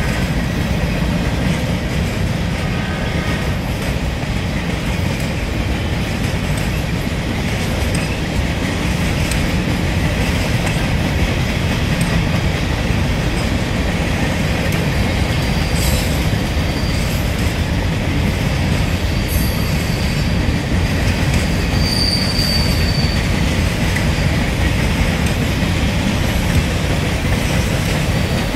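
Norfolk Southern freight cars, mostly covered hoppers, rolling past close by: a steady rumble of steel wheels on the rails, with a few brief, high-pitched wheel squeals, the clearest about three quarters of the way through.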